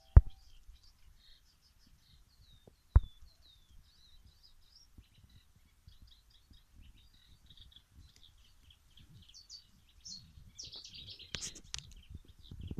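Small birds chirping and twittering in quick high-pitched notes throughout, growing louder and busier near the end. Two sharp loud clicks stand out, one just after the start and one about three seconds in.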